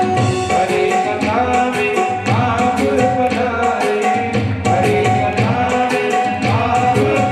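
Hindu devotional aarti to Shiva: tabla playing a quick, steady rhythm under a sung melody with held notes and pitch glides.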